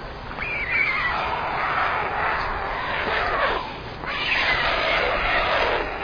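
White storks in the nest giving long, hoarse calls that fall in pitch, two in a row, the second starting about four seconds in, as they squabble over food.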